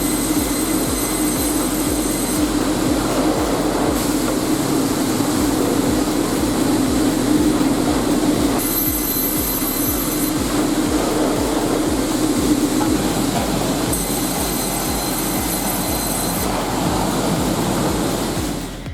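Automated sawmill machinery running with a steady mechanical drone, and a high-pitched whine coming in three times, each lasting about two seconds.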